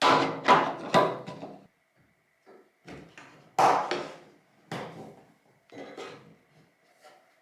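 Metal tailgate latch hardware (rods, clips and latch) clicking and clunking as it is snapped into place and worked by hand. There are three loud knocks in the first second, then scattered lighter clicks and clunks.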